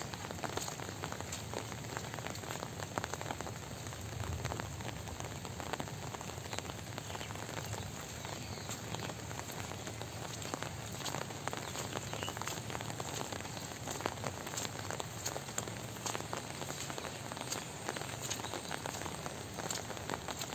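Steady light rain, with many small raindrop ticks over a soft even hiss.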